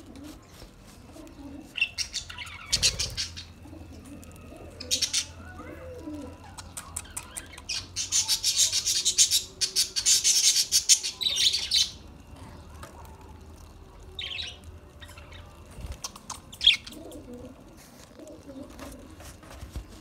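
A flock of budgerigars chirping, with bursts of wing-flapping, busiest and loudest in a dense stretch through the middle.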